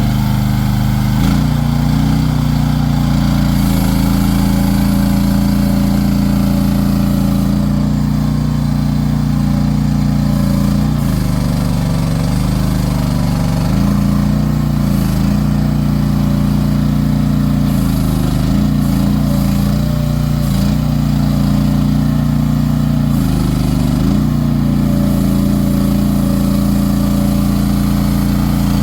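SDLE18P mini excavator's engine running steadily, its pitch sagging briefly several times as it takes load.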